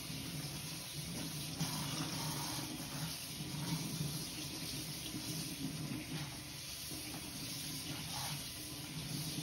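Cold water running steadily from a kitchen tap as a raw pork loin is rinsed under it in the sink.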